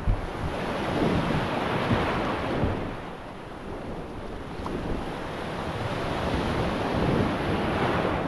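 Small surf breaking and washing around an open canoe as it is paddled out through the shore break, with wind buffeting the microphone. The wash swells louder about a second in and again near the end.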